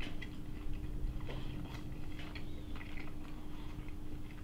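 A person chewing a bite of crispy-skinned grilled pork belly: faint, scattered mouth clicks and smacks over a steady low hum.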